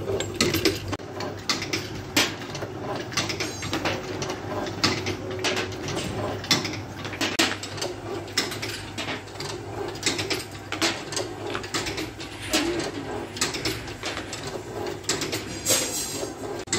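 Small empty glass bottles clinking and knocking against each other as they are handled and set down in rows, many quick clinks throughout, over a steady low machine hum.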